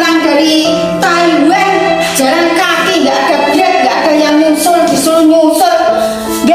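Background music: a woman singing a melody with held notes over instrumental accompaniment.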